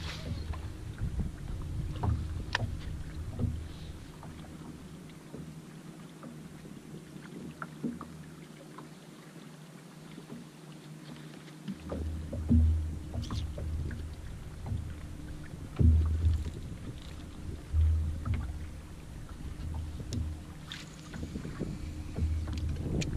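Wind gusting on the microphone and small waves slapping against a bass boat's hull, with a faint steady hum and scattered light clicks. The gusts die away for several seconds around the middle.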